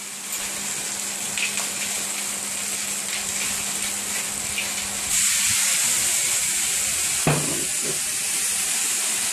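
Chicken pieces sizzling in a hot cast iron frying pan. About five seconds in, the sizzle turns louder and brighter as brandy is poured in and flambéed to deglaze the pan.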